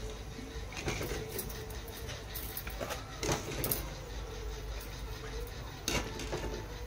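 Perforated steel ladle clinking and scraping against a wire-mesh strainer and a steel kadai while freshly fried peanuts are stirred and drained of oil: a handful of sharp metallic clinks, irregularly spaced, over a steady low hum.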